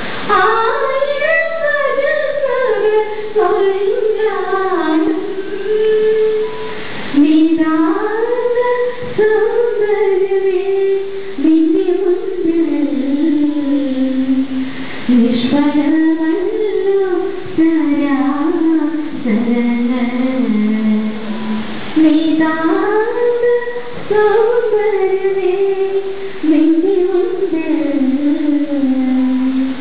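A woman singing a slow solo melody into a microphone, in long held phrases with short pauses for breath between them.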